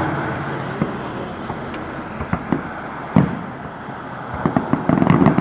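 Fireworks going off: scattered sharp pops and bangs, with one loud bang about three seconds in and a quick run of pops near the end. A passing car's noise fades out at the start.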